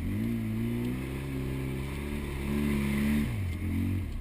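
Polaris RZR side-by-side's engine revving up and pulling at steady revs, as when climbing a hill, then dropping off about three and a half seconds in.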